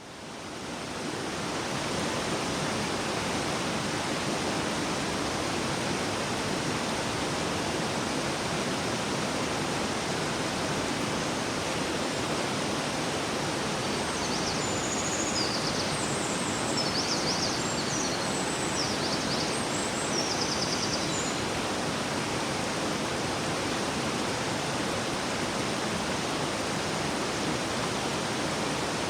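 A river flowing with a steady rushing sound, fading in over the first two seconds. A few faint, short high chirps come in around the middle.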